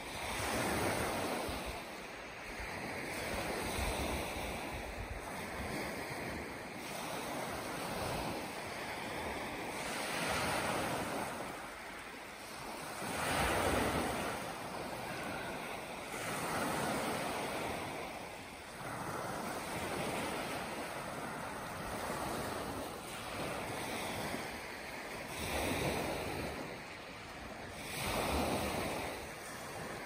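Small waves breaking and washing up a gravel beach, each one swelling and fading away every few seconds.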